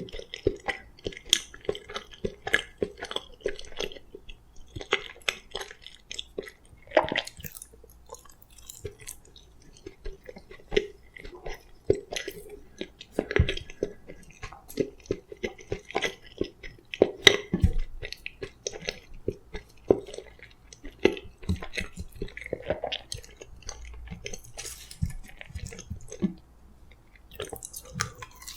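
A person chewing close to the microphone, eating boiled sweet potato, with irregular short mouth sounds and clicks.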